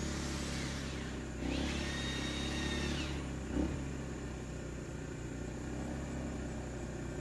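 Two vehicles pass by in the first three seconds, each a rush that swells and fades, the second with a steady whine, over the steady low hum of a running backup generator. A short thump comes just after.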